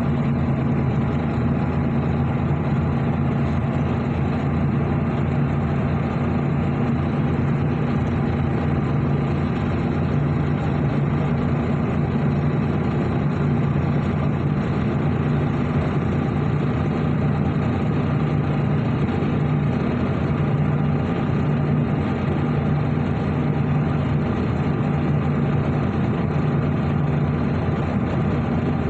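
An engine running steadily, a continuous low hum with no change in speed.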